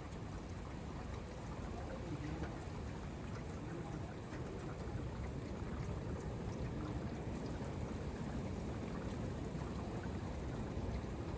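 Heavy rain and gusty wind making a steady rushing noise that swells a little partway through.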